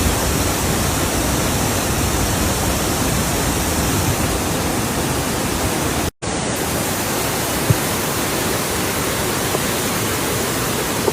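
Waterfall's rushing water, a loud, steady, even rush, cut off briefly about six seconds in before resuming.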